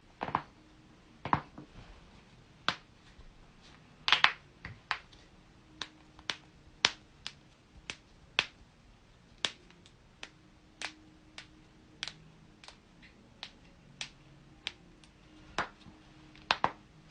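Human joints cracking: a long run of about two dozen sharp, separate pops, roughly one every half second to second, some coming in quick pairs.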